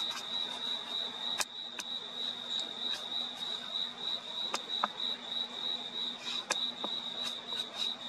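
Crickets chirping in a steady, high-pitched, pulsing trill, with a few sharp clicks and a faint low hum underneath.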